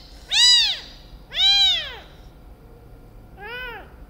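Kitten less than a month old meowing three times, high-pitched cries that each rise and fall in pitch, the last one fainter. It is crying while restrained for removal of maggots from its eye.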